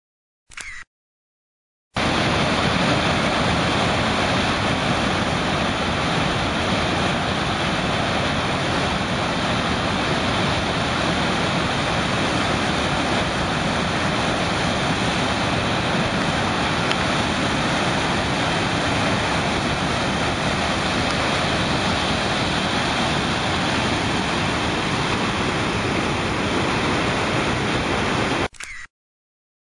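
Floodwater of the swollen Credit River pouring over a waterfall: a steady, even rush of white water that starts about two seconds in and cuts off shortly before the end.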